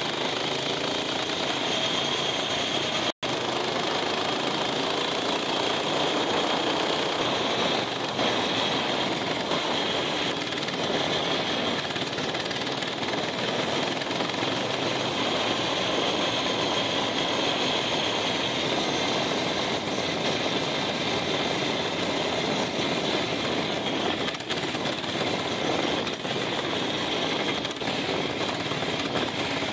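A mini bike's small engine, about 80 cc, running steadily under load while the bike is ridden, its pitch rising in the first couple of seconds. The sound cuts out for an instant about three seconds in.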